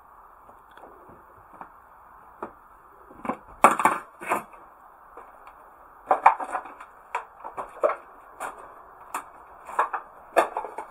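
Footsteps crunching and cracking over debris, at about a walking pace, with the loudest crunches around four seconds in and a steady run of steps from about six seconds on.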